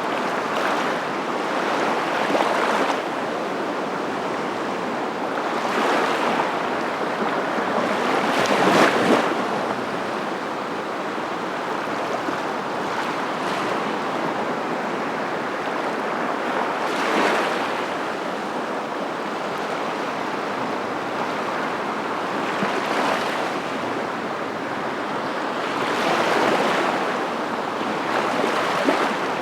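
Surf: a steady rush of water with waves swelling and washing in every few seconds, the strongest about nine seconds in.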